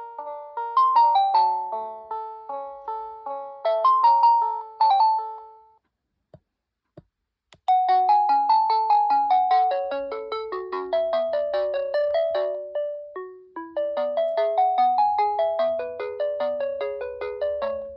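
GreenLyca GL70281 telephone playing its polyphonic ringtones, each a melody of short, quickly fading chime-like notes. One melody stops about six seconds in, two faint clicks follow, and a different melody begins about a second and a half later.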